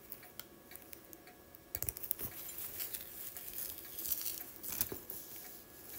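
Handling noise of a shoulder strap being fastened onto a soft polyurethane bag: rustling of the bag and a scatter of small clicks from the strap's clips, busier from about two seconds in.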